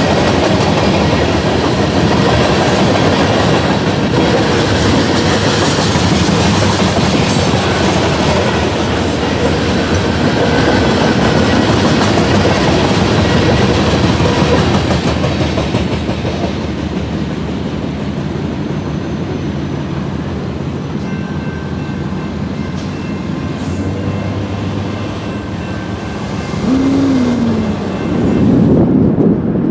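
Covered hopper cars of a freight train rolling past with a steady rumble and wheel clatter, fading after the last car goes by about halfway through. Near the end a road vehicle crosses the tracks close by.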